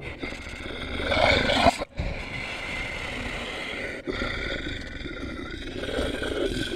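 Rough, rumbling beast growls and roars, a creature sound effect, broken off abruptly twice, about two seconds in and about four seconds in.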